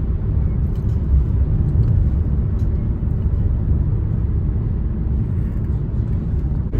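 A car driving along: steady low engine and road rumble heard from inside the cabin.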